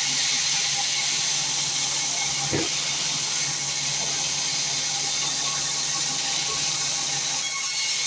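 Small wood sawmill running: a steady hiss with a low hum under it, and one short knock about two and a half seconds in.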